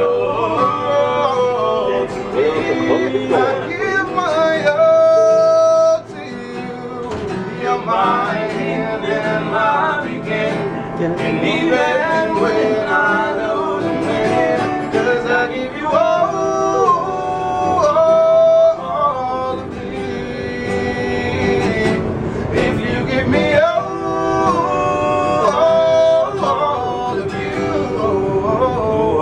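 A man singing with an acoustic guitar accompaniment, a continuous sung melody over steady strumming.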